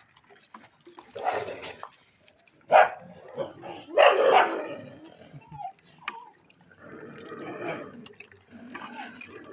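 Dogs barking in several short, loud outbursts, the loudest about three and four seconds in, as they squabble over food.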